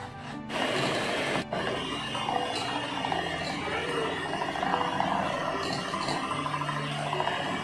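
Electric hand mixer running, its beaters whipping whipping powder into cream in a bowl. It starts about half a second in and runs steadily, with a brief dip around a second and a half.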